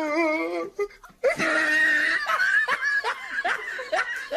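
Dog whining and howling in protest: a wavering cry, then after a short break a longer, louder howl that cuts off suddenly near the end. The owner takes it for theatrical complaining, since nothing has been done to it yet.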